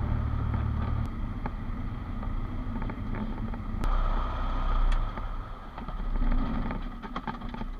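Cessna 172's engine and propeller running, heard from inside the cabin; the low engine note drops about a second in, and a different steady low rumble takes over about four seconds in.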